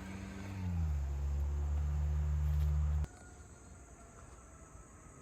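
A low, steady engine drone that dips slightly in pitch about a second in and cuts off abruptly about three seconds in, leaving faint insects chirring.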